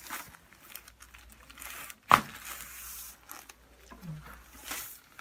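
Rustling and crinkling of a person shifting and turning over on a chiropractic treatment table, with one sharp knock about two seconds in.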